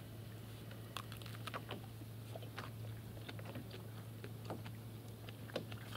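A person chewing a mouthful of barley groat sausage, with faint scattered mouth clicks and smacks over a steady low hum.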